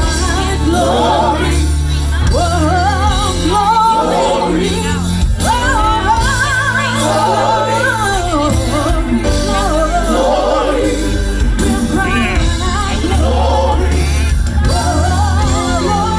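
Gospel singers drawing out long melismatic runs with heavy vibrato over a live band with held bass notes.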